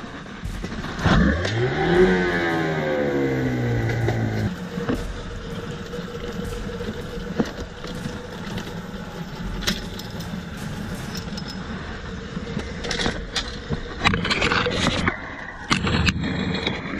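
Small outboard motor on a skiff rises sharply in pitch about a second in as it revs up, runs for about three seconds and cuts off suddenly. Scattered knocks and scrapes of gear in the boat follow.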